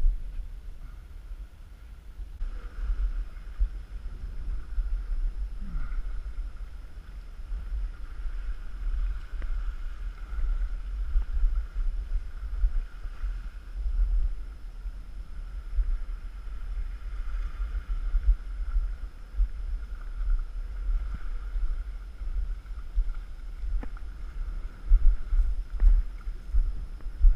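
Wind buffeting the microphone in a loud, gusting low rumble, with a faint steady high hum behind it.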